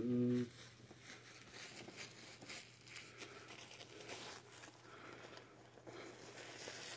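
A short low hum right at the start, then faint rustling and crinkling of a disposable diaper being handled and fitted onto a vinyl reborn doll.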